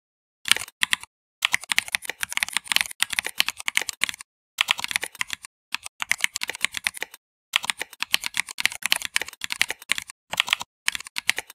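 Typing on a computer keyboard: quick runs of key clicks broken by short pauses, starting about half a second in.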